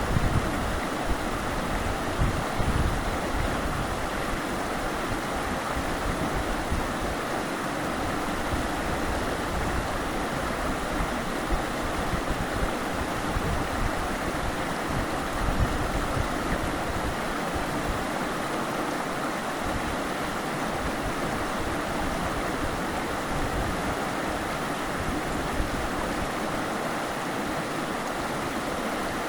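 Running water rushing steadily, like a stream or small falls, with an uneven low rumble underneath.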